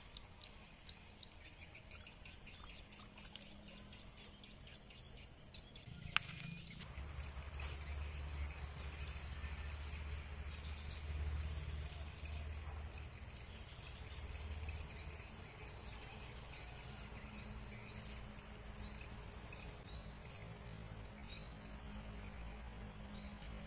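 Insects calling: fast rhythmic chirping at first, then, after a sharp click about six seconds in, a steady high-pitched buzz with a low rumble under it.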